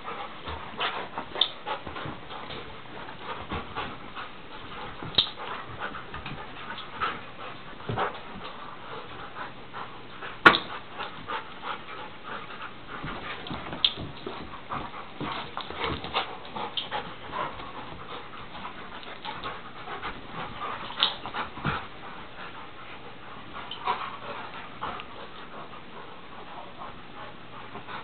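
Two dogs play-fighting: panting and scuffling on carpet, with many short clicks and knocks as they grapple. The loudest is a single sharp knock about ten and a half seconds in.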